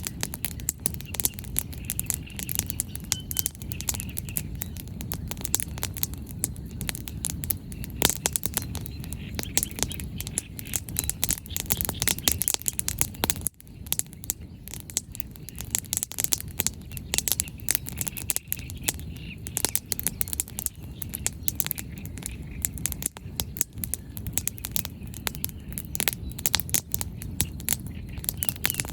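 A wood campfire crackling, with many irregular sharp pops and snaps from the burning firewood over a low, steady rumble.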